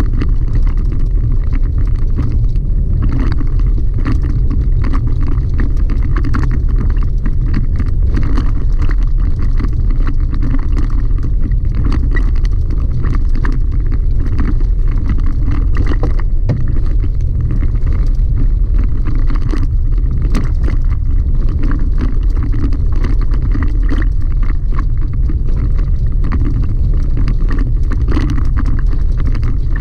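Chevy Colorado ZR2 pickup driving on a gravel dirt road, heard from inside the cab: a steady, loud low rumble of tyres and drivetrain, with frequent small clicks and rattles throughout.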